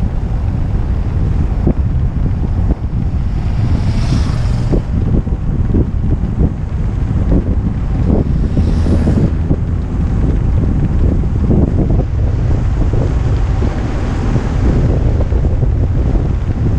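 Wind buffeting an action camera's microphone on a fast downhill footbike ride: a loud, steady low rumble broken by frequent short knocks, with hiss swelling briefly about four seconds and about nine seconds in.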